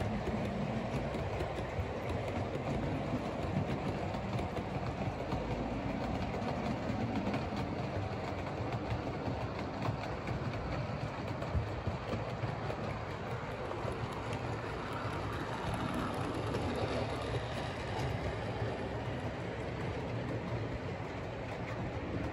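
00 gauge model trains running past on the layout's track: a steady rumble with rapid clicking of the wheels over the rail joints.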